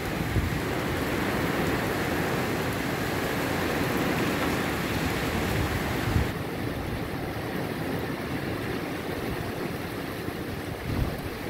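Steady hiss of heavy rain falling on a wet street and puddles, with wind gusting against the microphone in low rumbling buffets. The rain's hiss softens slightly a little past halfway through.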